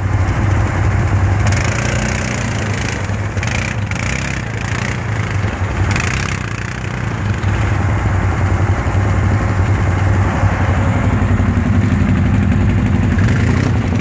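Quad bike (ATV) engine running, its level rising and falling as the quad churns through deep snow.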